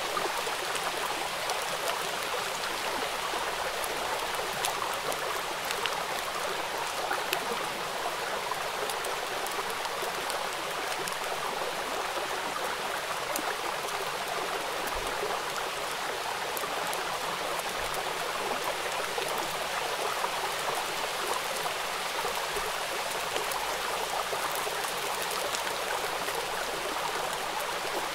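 Heavy rain pouring steadily onto wet brick paving: an even splashing hiss with individual drops ticking through it.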